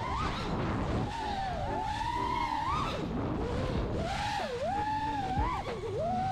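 A 5-inch FPV freestyle quadcopter's brushless motors (Rush 2207 1860kv) whining, the pitch swinging up and down with the throttle and dipping sharply several times. Wind rushes over the drone-mounted GoPro's microphone underneath.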